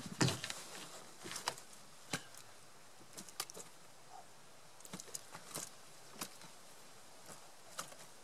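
Handling noises on a small boat as a large carp is lifted and set down: a thump just after the start, then scattered knocks, taps and rustles at uneven intervals.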